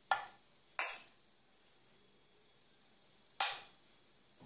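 A spoon clinking against a ceramic plate while knocking off grated apple: three sharp clinks, two within the first second and one about three and a half seconds in.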